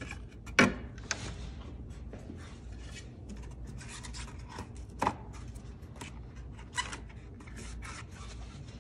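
Plastic engine-bay cover and rubber hose being handled and pulled loose by hand: rubbing and scraping with scattered sharp plastic clicks and knocks, the loudest about half a second in and others near the middle and about two-thirds through.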